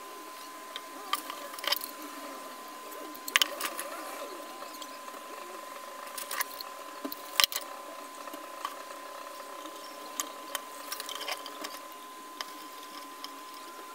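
Irregular small clicks and taps of hands handling plastic ping-pong-ball eyes and copper wire while fitting them onto a silicone puppet head, with a few sharper knocks, over a steady high-pitched hum.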